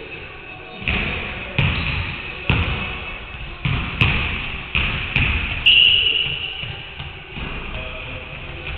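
Basketballs bouncing on a hardwood gym floor: about eight irregular thuds, each echoing through the big hall, with a short high squeak about six seconds in.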